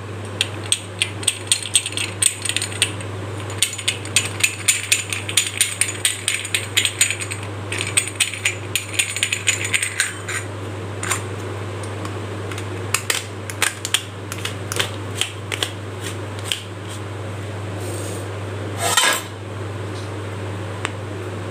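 Brass idiyappam press being wound down on its threaded screw rod, metal on metal, in quick runs of sharp clicks and rattles that thin out to scattered clicks after about ten seconds. A brief scrape near the end.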